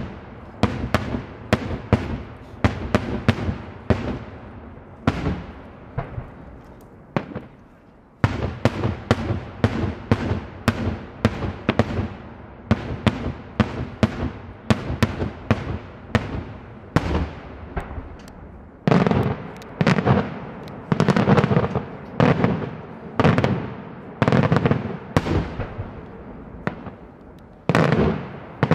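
Daytime aerial fireworks: a rapid string of sharp bangs from bursting shells, two to three a second. The bangs pause briefly about a quarter of the way through, then resume, and louder, deeper booms follow in the last third.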